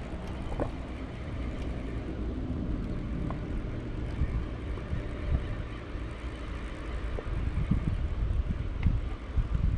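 Wind buffeting the microphone outdoors, a low rumble that swells and dips in gusts and grows stronger near the end.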